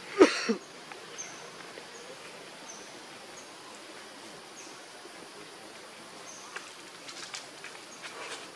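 A short, loud call falling in pitch about a quarter-second in. Then faint, high, short chirps about every second over a steady outdoor background, with light scuffing and rustling near the end.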